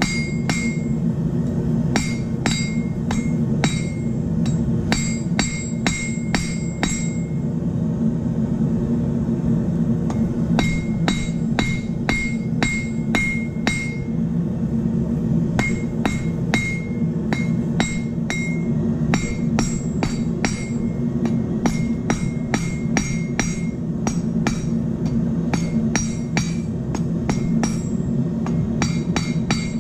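Hand hammer striking red-hot steel on an anvil, each blow ringing, in quick runs of about three blows a second with short pauses between runs and a longer pause of about three seconds roughly a third of the way in: drawing out the point of a forged crossbow bolt head. A steady low hum runs underneath.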